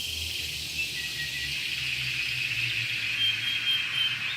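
Pet canary singing: a soft run of high trills with a few short whistled notes, over a low steady hum.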